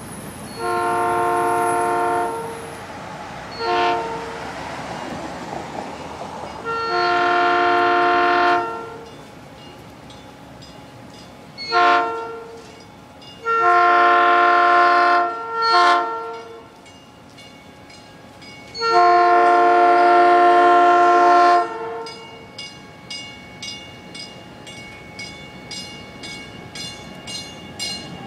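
Horn of a South Shore Line electric train car sounding as the train approaches: seven blasts, long and short in turn, each a chord of several pitches. In the last third a bell rings steadily, about three strokes a second.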